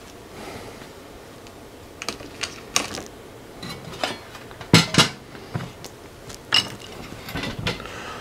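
Irregular clicks and light metallic clatter of a car radio's sheet-metal chassis and CD player mechanism being handled and fitted back together, with two sharper knocks about five seconds in.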